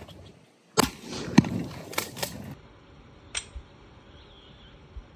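A rifle shot about a second in, followed by a few sharp knocks and clicks.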